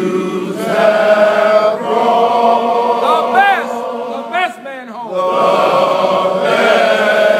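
A group of men's voices chanting a fraternity song in unison. Short rising-and-falling whoops break in a little past the middle, then the held group chant picks up again.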